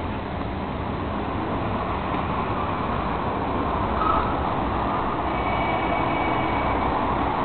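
Steady road traffic noise from cars passing on a city street, with a faint high whine for a couple of seconds near the end.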